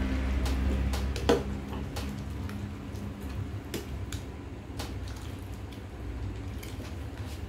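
Metal ladle stirring chicken soup in a stainless steel pot, clinking irregularly against the pot's side, with one louder clink about a second in, over a steady low hum.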